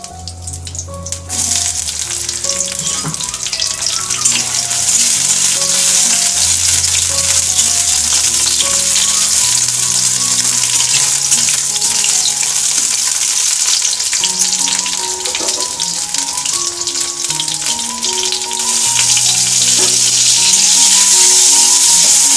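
Potato wedges and green chilli sizzling in hot oil in a kadhai while a spatula turns them. The sizzle starts suddenly about a second in, runs steadily, and grows louder near the end.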